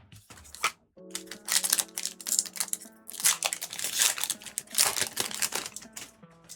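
Foil Pokémon booster pack wrapper crinkling loudly in a run of bursts as it is torn open and handled, over quiet background music.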